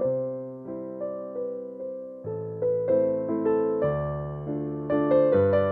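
Background music on electric piano: gentle chords over a bass line, each note struck and left to fade.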